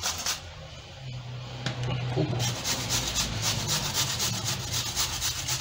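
Garlic being grated on a stainless-steel box grater: quick, repeated rasping strokes, with a short lull near the start.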